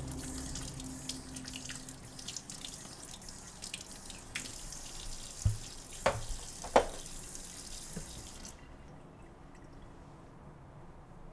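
Kitchen faucet running into a sink as a glass is rinsed or filled under the stream. A few sharp knocks and clinks come near the middle, and the water cuts off suddenly about eight and a half seconds in.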